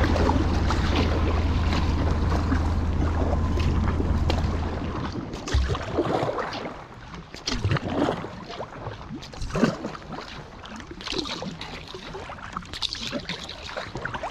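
Sea kayak moving on a river. At first a loud, steady rush of choppy water and wind noise against the hull; about five seconds in, this drops to a quieter stretch of single paddle strokes splashing into the water every couple of seconds, with water running along the hull.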